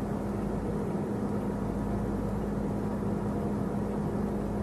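Steady low rumble of a moving car heard from inside the cabin, with a constant low hum running under it.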